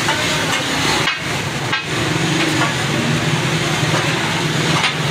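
Metal spatula clanking and scraping on a large flat tawa griddle over a steady hiss of frying, with street traffic noise behind.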